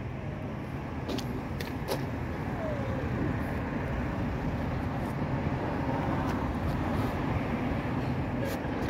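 Steady low outdoor rumble, slowly growing louder, with a few faint clicks between one and two seconds in.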